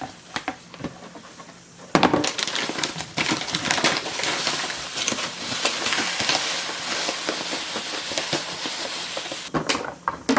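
Crinkling and crackling of a plastic packet of panko breadcrumbs being handled and poured out. After a few light clicks, a dense run of crackles starts about two seconds in and stops shortly before the end.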